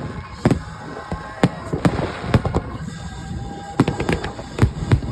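Fireworks going off in an irregular series of sharp bangs, about ten in all, bunched in two runs with a short lull near the middle.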